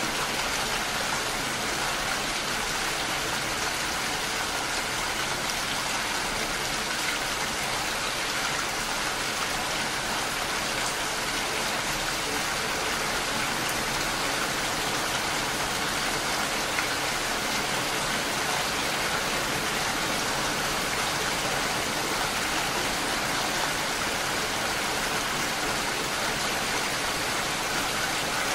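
Steady rain falling, an even, unbroken hiss of many drops.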